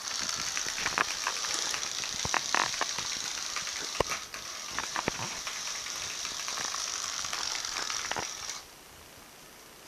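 A beaded string dragged across a ceramic tile floor, hissing and rattling with many sharp clicks as the beads hit the tiles; it stops suddenly shortly before the end.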